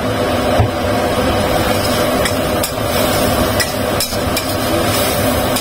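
Metal spatula scraping and knocking against a wok while stirring a thick chilli paste, a handful of sharp clacks spread through, over a steady mechanical hum.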